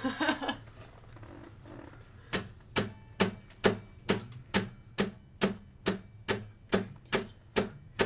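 Steady beat of sharp percussive clicks, a little over two a second, starting about two seconds in and keeping time to count in an acoustic song.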